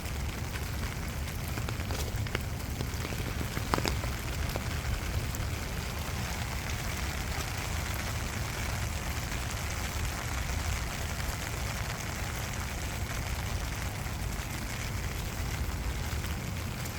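Steady rain falling, with scattered sharp drop ticks and one louder tick about four seconds in, over a constant low rumble.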